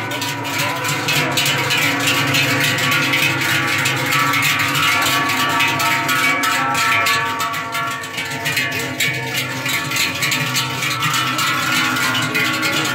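Many large cowbells on walking cows ringing and clanging together, an unbroken jangle of overlapping bell tones.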